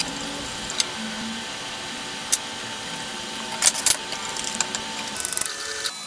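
Hex driver turning small screws into a plastic RC crawler chassis, with light clicks and taps of the tool and parts being handled. A few single clicks, a cluster near the middle, then a run of small ticks near the end, over soft steady background music.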